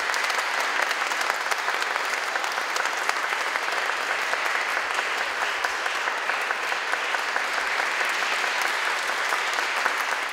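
Audience applauding, dense clapping at a steady level throughout.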